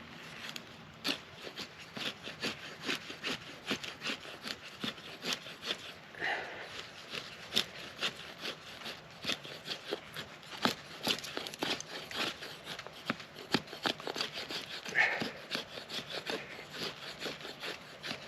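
A Gerber Freeman folding knife being worked in quick, repeated scraping strokes, irregular at about two or three a second.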